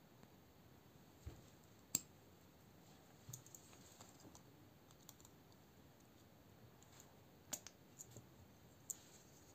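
Scattered small clicks and taps of hand tools and a folding knife being handled, with a quick run of clicks near the end as locking forceps (a hemostat) are clamped onto a screw of the knife to hold it.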